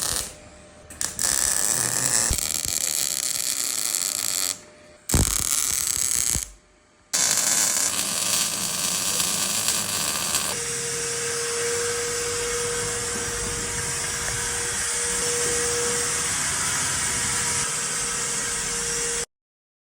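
Electric welding on a steel seat frame: a steady crackling hiss, broken by a few short edits in the first seconds. About ten seconds in, a steady hum joins it.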